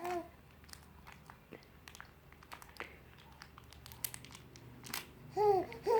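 A toddler babbling, one short call at the start and a few louder rising-and-falling calls near the end, between scattered small crinkles and clicks of eating a chocolate bar from its wrapper.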